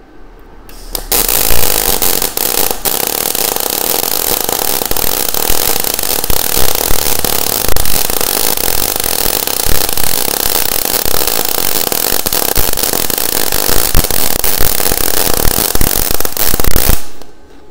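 MIG welding arc of a Weldinger MEW 201 SYN ECO running solid wire under shielding gas, the torch pushed forward along a bead: a steady arc noise with many small pops. It starts about a second in and cuts off about a second before the end.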